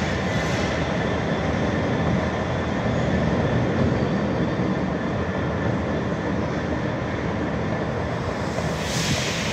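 Class 66 diesel-electric locomotive's two-stroke EMD V12 engine running steadily as the locomotive moves away on its own as a light engine.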